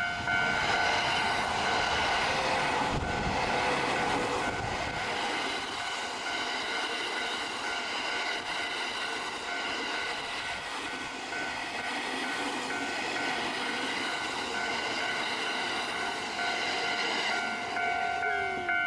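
A Japanese railway level crossing's electronic warning bell ringing in steady repeated tones while a Narita Line train passes over the crossing. The train's rumble is heaviest about three to five seconds in, and the bell stands out clearly again near the end as the train clears.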